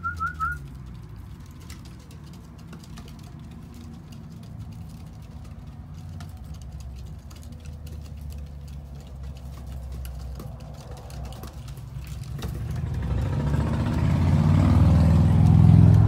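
A vehicle passing by: a low rumble that builds from about three-quarters of the way through and is loudest at the end. Right at the start there is a brief run of high whistled chirps.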